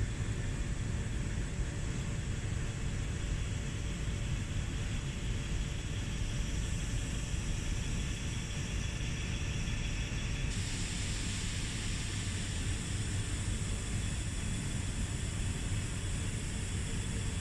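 Steady low machinery rumble and hum, with no blows or strikes. The higher hiss steps up abruptly about ten seconds in.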